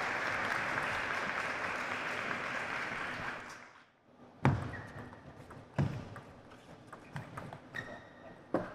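Applause that fades out about four seconds in, then the sharp clicks of a table tennis ball off bats and table, a few strokes spaced a second or more apart.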